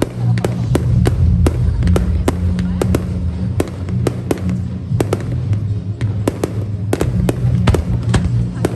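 Fireworks display bursting in quick, irregular succession: sharp cracks and bangs, several a second, over a steady low rumble.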